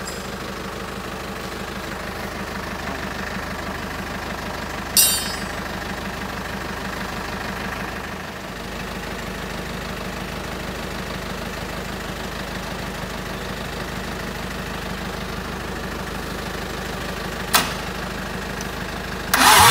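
An engine idling steadily, with a short sharp clank about five seconds in and another near the end. Just before the end a much louder engine noise suddenly cuts in.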